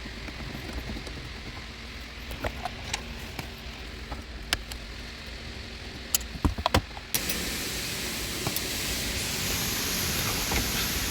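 A few clicks and knocks of parts being handled, then about seven seconds in a car's AC blower fan switches on with a steady rush of air that grows a little stronger a couple of seconds later.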